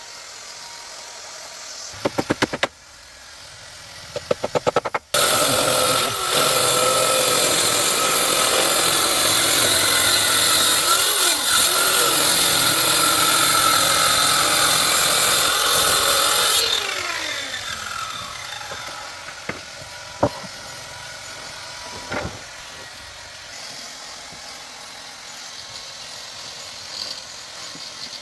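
Electric woodworking power tool: two short stuttering bursts, then running steadily for about eleven seconds before it is switched off and its motor whines down in falling pitch. A couple of single knocks follow.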